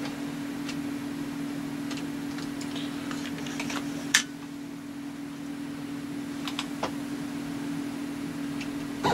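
Scattered light clicks of typing on a computer keyboard, one louder click about four seconds in, over a steady low hum from the powered-up CNC mill setup while it is being zeroed.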